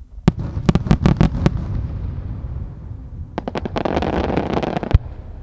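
Aerial firework shells bursting: a sharp report, then several quick bangs within the first second and a half over a low rumble. About three seconds in come a few more sharp cracks and then a dense crackling of many small bursts for about a second, ended by one loud bang near the end.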